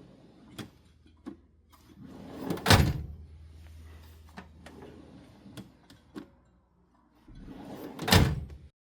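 Tool-chest drawer sliding on its runners twice, each slide building up and ending in a sharp stop, with scattered light clicks between.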